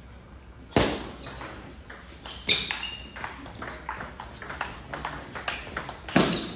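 Table tennis rally: a celluloid-plastic ball knocking back and forth on rackets and table in quick sharp clicks, with two louder hits about a second in and near the end.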